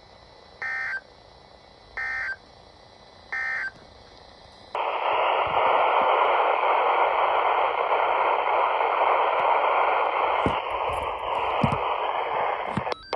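Three short bursts of Emergency Alert System data tones, about a second and a half apart: the end-of-message signal after the warning. From about five seconds in, loud steady radio static follows.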